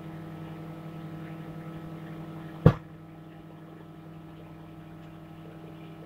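Microwave oven running with a steady hum, heating an oxygen absorber packet. About two and a half seconds in comes one sharp pop as the packet starts to pop under the heat.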